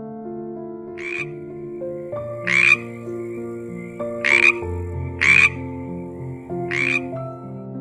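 Frog croaking: five short rasping croaks, one every one to one and a half seconds, over soft background music.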